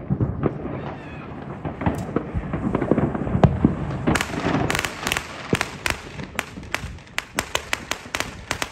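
New Year's fireworks going off: a steady rumble of booming bursts, then from about four seconds in a fast, irregular run of sharp firecracker cracks.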